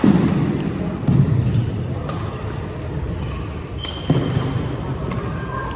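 Badminton rally: several sharp racket strikes on the shuttlecock, each followed by a dull echo in a large sports hall. The loudest comes right at the start and others follow about a second apart, with thuds of players' footfalls.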